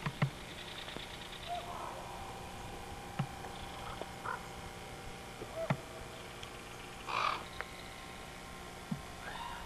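A crow cawing: one loud harsh caw about seven seconds in, with a softer call near two seconds. A few sharp clicks and a steady low hum run underneath.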